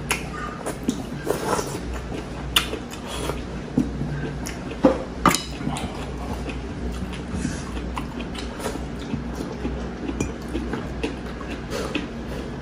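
Close-miked eating sounds: slurping and chewing, with scattered light clicks of a wooden spoon and dishes, the sharpest two close together about midway.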